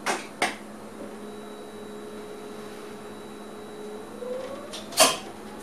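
Steady hum inside an electric train's driver's cab, with a thin whine that holds one pitch and then rises from about four seconds in, as the train's electric drive picks up speed. Two sharp clicks at the start and a louder click about five seconds in.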